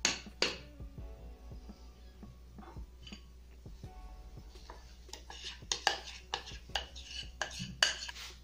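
A metal spoon clinking against glass mixing bowls. There are two sharp clinks at the start while flour is stirred, then a quick run of clinks and scrapes in the second half as the yeast starter is scraped from a small glass bowl into the flour.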